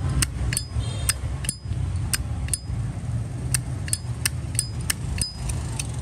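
Zippo lighter lid being flipped open and snapped shut again and again: sharp metallic clicks, about fifteen in all, some with a brief high ring. A low steady rumble runs underneath.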